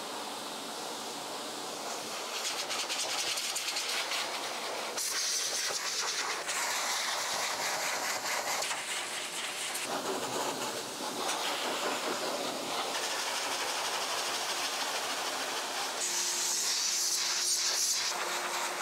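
High-velocity pet dryer blowing a steady hiss of air through a Great Pyrenees' thick coat, the hiss brightening and dulling as the nozzle is moved over the dog. A faint steady motor hum sits under it in the last few seconds.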